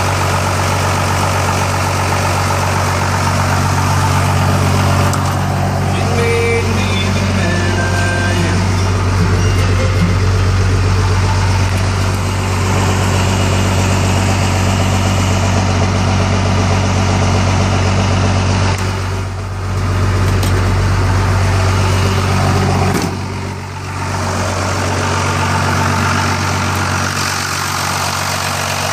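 The intercooled 5.9-litre Cummins turbo diesel inline-six of a 1991 Dodge W250, fitted with a 5-inch stack, idling steadily. It drops briefly in loudness twice, about two-thirds of the way through.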